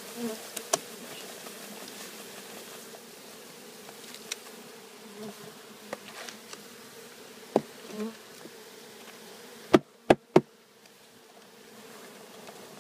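Carniolan honeybees buzzing in a steady hum as they are shaken out of a bee package. A few scattered knocks, then three sharp knocks in quick succession about ten seconds in, from the package being banged to dislodge the remaining bees.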